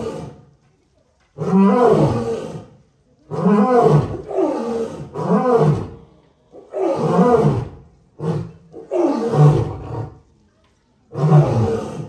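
Male lion roaring: a run of about eight calls, each a second or so long, coming every second and a half to two seconds.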